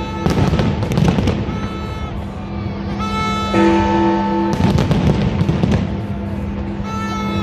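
Fireworks bursting in rapid clusters of bangs, about a second in and again around five seconds, over loud music with long held notes accompanying the display.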